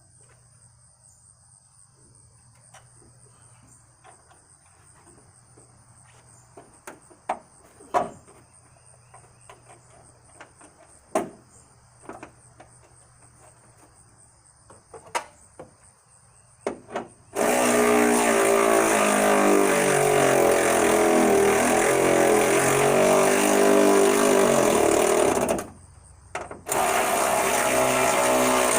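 Scattered clicks and knocks of hand work, then a handheld power tool's motor runs loudly for about eight seconds with its pitch wavering under load, stops, and runs again for about two seconds. Crickets chirp steadily underneath.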